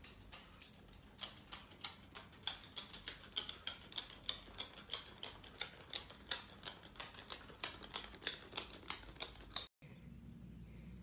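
Small parrot's claws tapping on a hard, smooth floor as it walks, a quick even run of light clicks about three to four a second. The clicks stop suddenly near the end, leaving only a faint low background.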